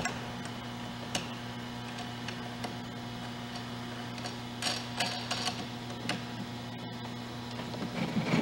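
Scattered light clicks and taps of a screwdriver and metal handle parts being handled while a clamp on a snowblower's lower handle bar is tightened, with a cluster of clicks about five seconds in, over a steady low hum.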